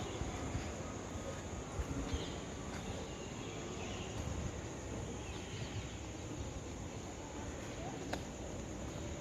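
Early-morning outdoor ambience with a steady low rumble and a thin, steady high whine, under scattered short bird chirps. There is a sharp click about eight seconds in.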